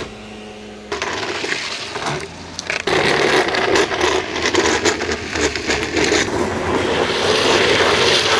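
Drift trikes' hard plastic rear wheels sliding and rolling over wet asphalt, a rough, continuous scraping hiss that grows louder about three seconds in.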